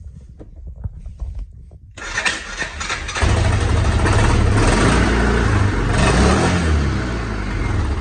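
A Hisun 550 UTV's fuel-injected single-cylinder engine catches about two seconds in and runs loud and uneven as it is given gas, its pitch rising and falling, then sags near the end as it dies. It is hard-starting, losing power and cutting out, which the owner puts down to a clogged fuel injector.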